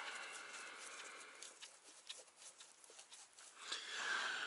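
Faint scattered light clicks and rustling of a gloved hand handling small bolts at a truck transmission's inspection cover, with a soft hiss near the start and again about four seconds in.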